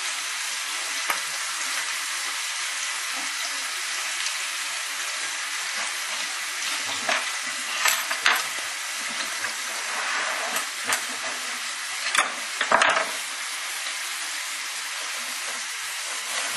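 Pieces of meat frying in a pan on a gas hob, a steady sizzle. A few short clatters of pots and utensils come about eight seconds in and again around twelve to thirteen seconds in.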